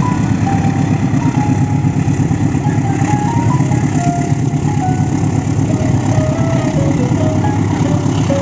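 A steady low mechanical drone with a rapid flutter, like a running motor, with a faint melody of short notes above it.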